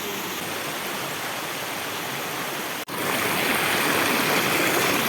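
Water of a small forest waterfall running over rocks, a steady rushing hiss with little flow. About three seconds in it breaks off for an instant and comes back louder and brighter.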